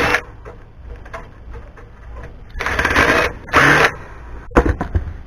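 Cordless power driver running in two short bursts, one right after the other, a little past the middle, with a fast clattering whir, as screws are backed out of a scrap amplifier. A few sharp metal clicks follow near the end.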